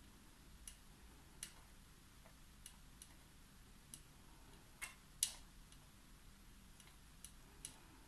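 Faint, irregular clicks and ticks as a small metal crochet hook picks into cotton macramé cord and taps against the cutting mat while unravelling the strands into a fringe, one louder click a little past five seconds in.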